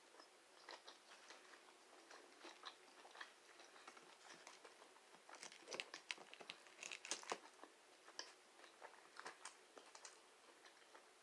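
Faint chewing of chicken nuggets: soft, irregular mouth clicks, busier about halfway through.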